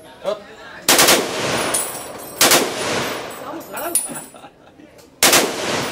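Mounted M30 machine gun firing three short bursts, about a second and a half and then nearly three seconds apart, each one ringing and echoing away.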